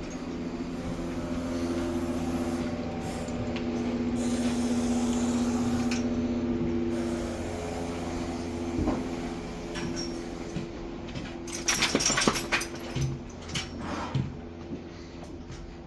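A steady drone made of several steady tones over a low hum, swelling a little in the middle, with a short cluster of knocks and rattles about twelve seconds in and a few lighter knocks after.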